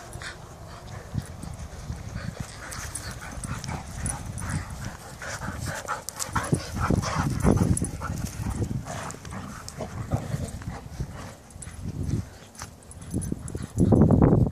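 Two dogs making short whimpers and play noises while they run together gripping one ball, with a loud burst of sound near the end.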